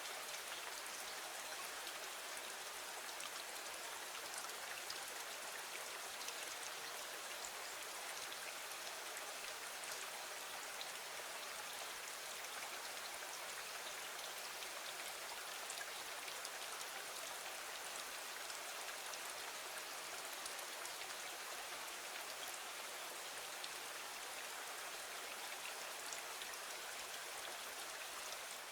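Steady rain falling, an even hiss with fine, scattered drop ticks that does not change.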